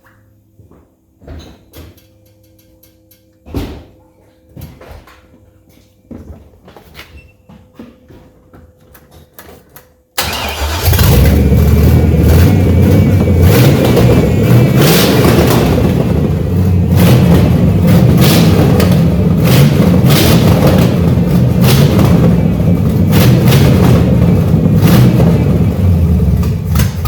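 Carbureted 350 (5.7 L) Vortec small-block V8 in an S10 Blazer firing up: a few faint clicks for the first ten seconds, then the engine catches suddenly and runs loud and steady with some revving until it dies down at the very end. It is a freshly built engine whose carburettor still needs tuning in.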